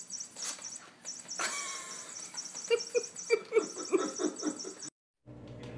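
A person laughing in a quick run of short bursts, after a brief high squeal. The sound cuts off abruptly near the end.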